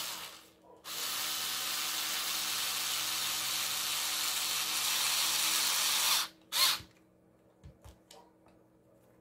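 Small cordless screwdriver running as it drives screws into a plastic tool housing. There is a brief run, then a steady run of about five seconds, then another short burst, followed by a few light clicks near the end.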